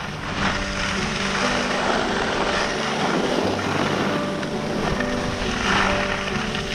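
Steady rush of wind over an action camera's microphone, mixed with skis sliding and carving on groomed snow during a fast downhill run. Faint music with held notes runs underneath and grows near the end.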